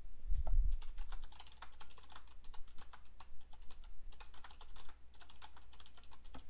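Typing on a computer keyboard: a quick, irregular run of key clicks in uneven bursts, preceded by a low thump about half a second in.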